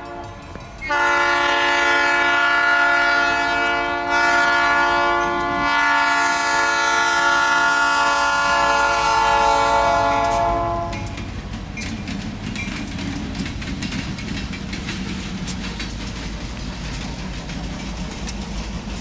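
Union Pacific locomotive air horn sounding at a grade crossing: a long blast, a brief break about three seconds in, then a longer blast held to about eleven seconds. After it stops, the locomotive's engine rumble and the wheels clicking over the rail joints carry on as the train passes.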